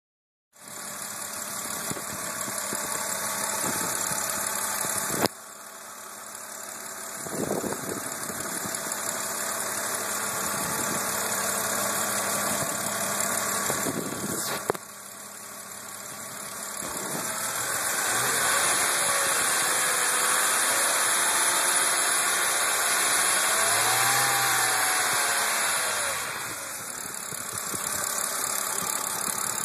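BMW Z4 E86 3.0si's inline-six engine running with a ticking, rattling noise inside the engine. The level drops suddenly about five and fifteen seconds in, and there is a louder stretch in the second half.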